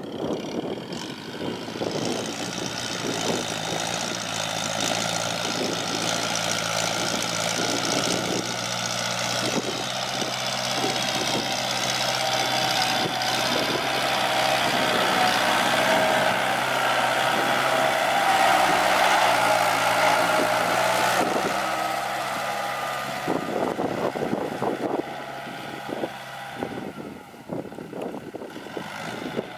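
Heavy diesel construction machinery running steadily under load, with a higher whine over the engine note. It grows louder toward a peak about two-thirds of the way through, then eases off near the end.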